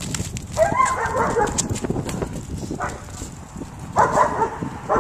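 German Shepherd barking: a run of barks about half a second in, another burst about four seconds in and a single bark near the end, over light clicks throughout.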